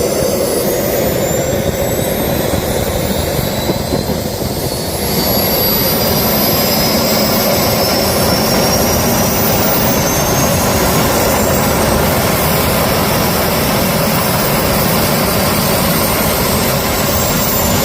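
Jet engine running on a test stand, its high turbine whine climbing in pitch as it spools up, getting louder about five seconds in and then running steadily. It is a test run of an engine that shows signs of crash damage.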